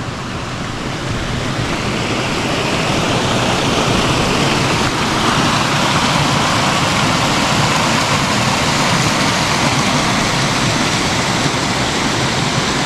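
Mountain stream rushing: a steady noise of running water that grows gradually louder over the first few seconds.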